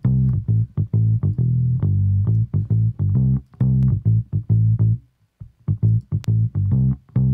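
Bass guitar track playing back a run of short, punchy low notes through the Cenozoix Compressor, with its Tight control engaged to tighten the low end. The line breaks off briefly about five seconds in, then picks up again.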